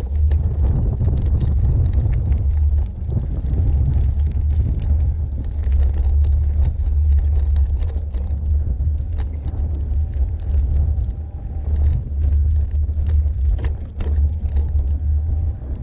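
Wind buffeting the microphone and tyres rumbling over a rough gravel track as a Carrera Crossfuse e-bike is ridden along, a steady low rumble with occasional small clicks and rattles from the bike.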